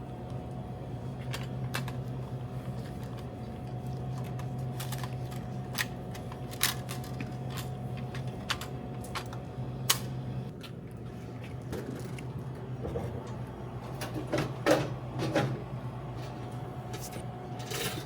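Snacks and drinks being handled and loaded into a vending machine: scattered clicks, taps and knocks, with a cluster of clattering around 15 seconds in. This sits over a steady machine hum whose low part stops about ten seconds in.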